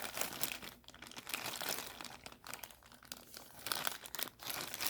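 Plastic bags of MC4 solar connectors being handled, crinkling and crackling irregularly.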